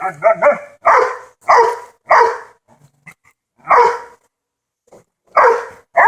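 A dog barking repeatedly: a quick flurry of short barks, then about six loud single barks at uneven gaps.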